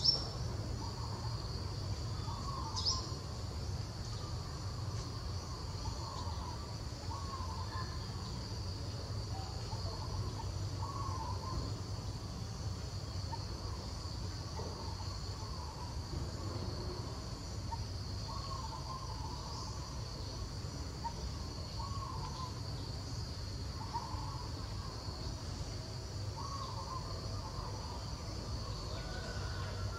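Steady high-pitched drone of insects in the forest, with short faint calls repeating every second or two.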